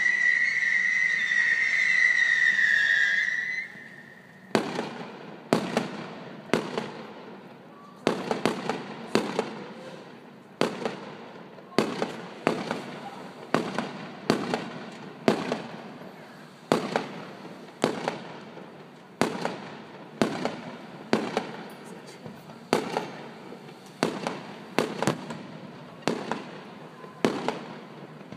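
Fireworks display: a whistling firework shrieks on one shrill, steady note for about the first three seconds, dipping slightly before it stops. Then aerial shells burst in a steady string of sharp bangs, roughly two a second, each followed by a short echoing tail.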